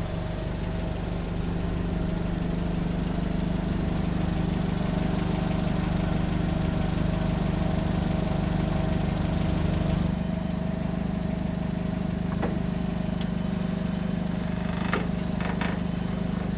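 Nissan forklift's engine running steadily while it carries the roughly 3200 lb bandsaw over a trailer deck. The engine eases back a little about ten seconds in. A few light knocks come near the end.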